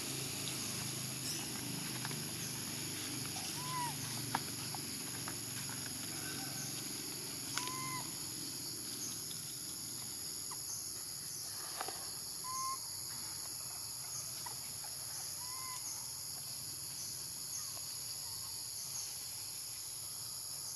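Outdoor natural ambience: a steady high-pitched drone throughout, with a short rising-and-falling call every few seconds and an occasional faint click.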